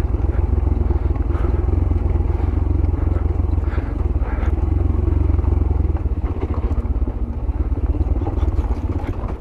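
Yamaha YBR 125G's single-cylinder four-stroke engine running steadily at low revs while the motorcycle descends a rough off-road track.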